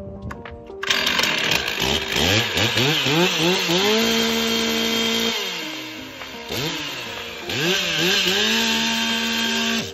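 Chainsaw engine revved up in several quick rising blips, then held at high revs. It falls back, is revved up again a couple of times and held high, and cuts off suddenly near the end.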